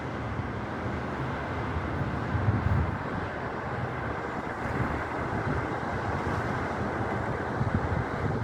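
Strong wind blowing across the microphone, a steady rushing with heavier low buffeting gusts about two and a half seconds in and again near the end.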